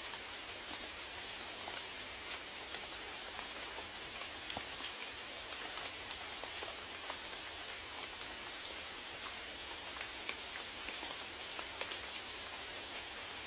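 Steady rain falling, a continuous hiss with many individual drops ticking and pattering on a surface throughout.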